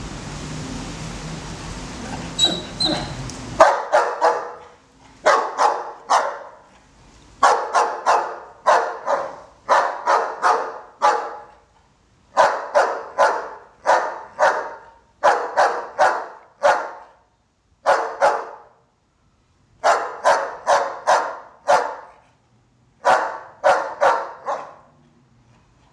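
Doberman barking repeatedly in quick runs of two to four loud barks with short pauses between them. The first few seconds hold only a steady background hiss, which stops abruptly just before the barking starts.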